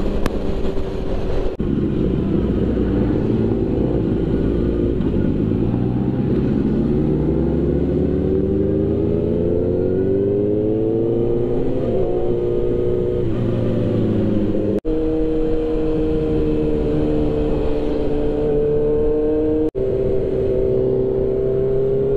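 Inline-four sport bike engine heard from the rider's seat, rising steadily in pitch as the bike accelerates, easing off, then holding a steady cruise. The sound cuts out briefly twice in the second half.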